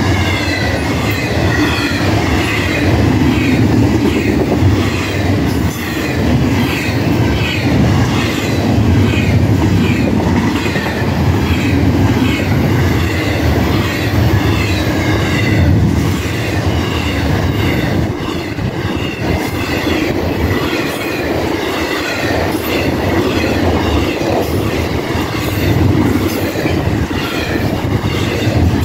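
Florida East Coast Railway intermodal freight cars running past close by at speed, a steady loud rumble with the clatter of wheels over rail joints. A high ringing repeats about twice a second over it.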